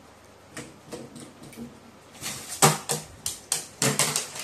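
An irregular run of sharp taps and knocks on a hard surface, a few faint ones early and then about eight louder ones close together from about two seconds in.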